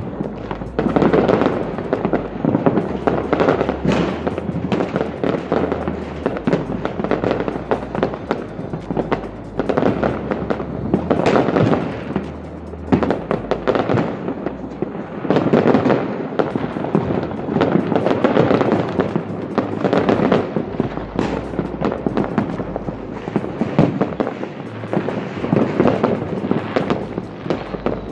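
Many fireworks going off at once across a city: a continuous barrage of bangs, pops and crackling bursts, near and far, with no break.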